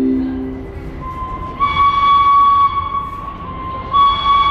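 A subway train approaching the station, sounding a steady high-pitched tone with overtones. The tone swells about one and a half seconds in, dies down, and comes back near the end.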